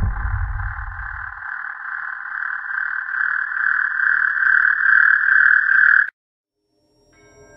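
A steady, slightly pulsing mid-pitched drone in the edit's soundtrack that swells in loudness and cuts off abruptly about six seconds in, leaving a second of silence before the title card. A low throb fades out in the first second and a half.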